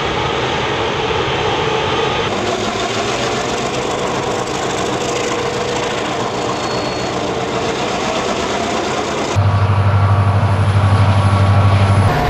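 Diesel freight locomotives running under load, heard in short successive shots; in the last few seconds a locomotive passes close with a loud, steady low engine drone.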